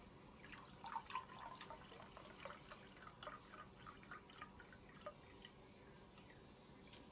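Faint dripping and gurgling of seafood stock poured from a carton into a cup, a quick patter of small drips and glugs that thins out after about five seconds.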